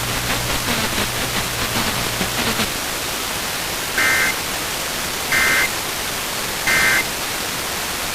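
Radio static hiss, then three short bursts of EAS data tones (the end-of-message code) about 1.4 seconds apart, closing the emergency alert system test.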